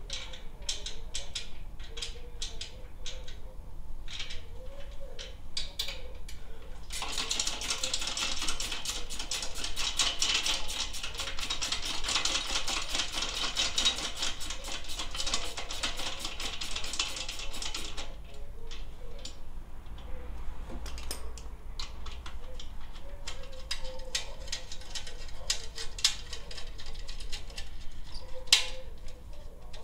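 Ratchet wrench clicking as the motorcycle's muffler fasteners are loosened: scattered clicks, a long run of rapid clicking from about seven to eighteen seconds in, then scattered clicks again.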